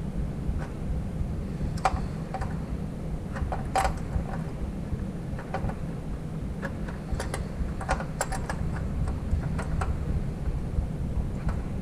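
Irregular light clicks and taps of a bolt and metal bracket being handled while a 12mm bolt is worked up into a nut under a car, over a steady low hum.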